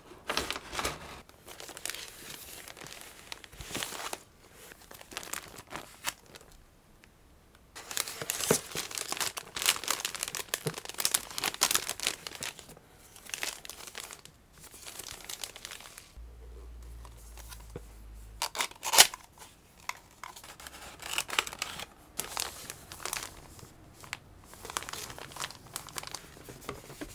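Clear plastic packaging bags crinkling in irregular bursts as they are handled and lifted out of a cardboard box, with a sharper crackle about two-thirds of the way through.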